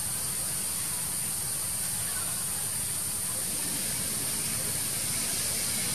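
Steady outdoor ambient noise: an even high-pitched hiss over a low rumble, unbroken and unchanging.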